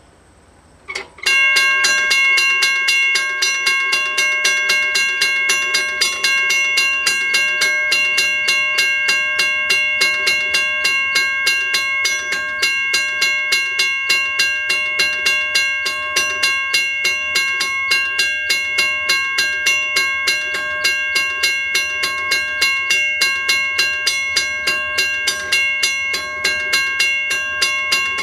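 Railroad grade crossing bell starting up suddenly about a second in and ringing steadily at about two strikes a second. It marks the crossing signals activating for an approaching train.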